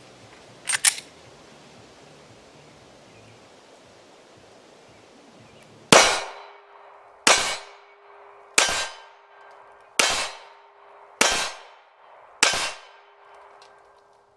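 Six single shots from a Glock 43 9mm subcompact pistol, fired at an even, unhurried pace about a second and a quarter apart.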